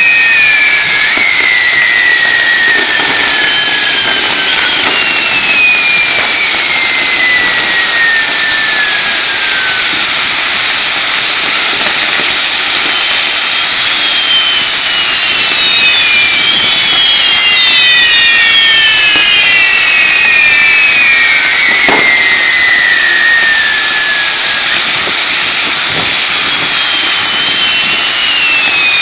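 Firework castle tower burning: a loud, continuous hiss of fountains and spinning fire wheels, with several whistles that slide slowly down in pitch. A sharp bang comes about 22 seconds in and another about 26 seconds in.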